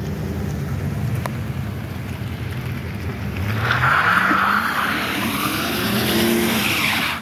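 GM pickup truck's engine revving up from about three seconds in, with the hiss of a rear tire spinning on wet pavement. Only one rear wheel spins, the sign of an open or unlocked rear differential. The sound cuts off abruptly at the end.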